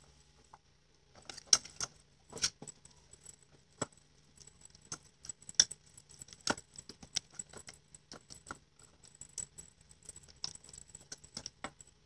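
Wire whisk clicking and scraping irregularly against a metal saucepan, stirring margarine and white chocolate as they melt. The clicks start about a second in.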